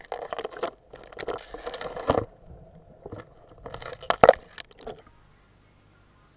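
Irregular crunching and scraping noises with sharp clicks, stopping about five seconds in.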